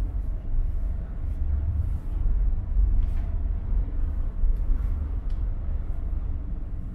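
Steady low rumble of a ferry's engines and hull vibration heard inside a passenger berth, with faint rustling of a bed sheet being handled.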